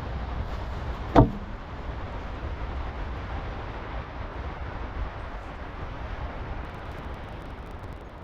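Steady low rumbling noise with no clear pitch, and one sharp knock about a second in.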